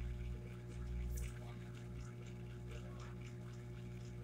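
Steady low electrical hum with faint scattered ticks and rustles, and a stronger low rumble during the first second or so.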